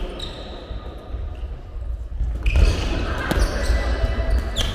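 Squash volleyball ball being struck and bouncing during play in a gymnasium, several sharp hits echoing in the hall, most of them in the second half, with a few brief high squeaks near the end and players' voices in the background.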